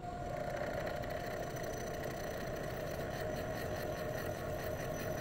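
Milling machine spindle turning a single-insert fly cutter as it faces a block of hot-rolled steel: a steady machine whir with a constant tone, coming in right at the start.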